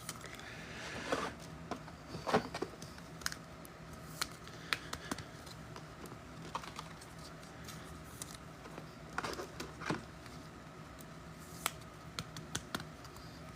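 Trading cards being handled on a table: scattered light taps and clicks with soft slides, irregular and faint.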